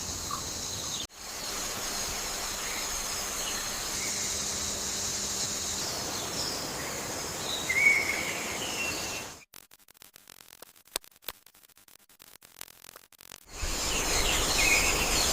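Tropical forest ambience: a steady high insect drone with scattered short bird chirps. It drops out almost to quiet for about four seconds past the middle, with only a few faint clicks, then comes back.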